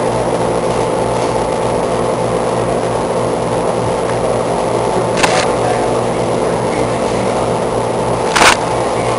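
Man-made tornado exhibit's fan and fog machinery running with a loud, steady hum. Two short sharp noises break in, about five seconds in and near the end.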